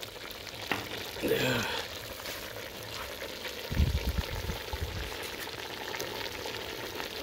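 A pot of chicken with lemongrass and chilies cooking hot over a burner, giving a steady sizzling hiss. A few low rumbling bumps come about four seconds in.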